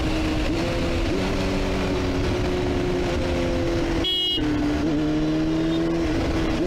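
Sport motorcycle engine running at steady revs while riding, over a constant rush of wind and road noise. The sound breaks off briefly about four seconds in. The engine note then returns slightly lower and climbs slowly.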